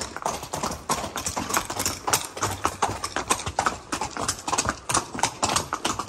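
Horses' hooves clip-clopping at a walk on hexagonal concrete paving stones, an irregular run of sharp knocks.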